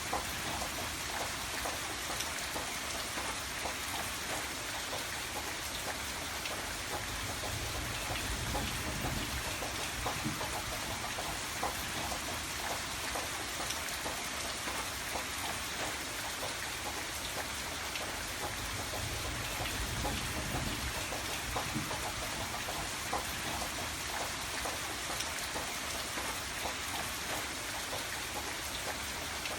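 Steady rain falling, a constant hiss with many individual drops ticking on a hard surface.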